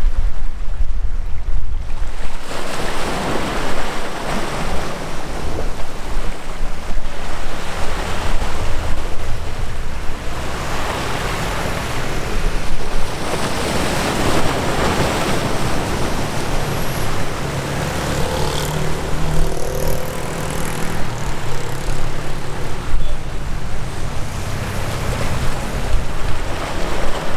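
Wind buffeting the microphone over rushing water, swelling and easing every few seconds, with a low engine rumble underneath that grows a little steadier in the second half.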